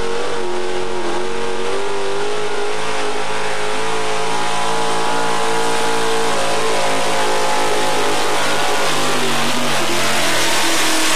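Pro street four-wheel-drive Chevrolet pickup's engine running flat out at high revs under load as it pulls a weight sled, the pitch holding nearly steady with slight wavers, then starting to fall right at the end as the driver backs off.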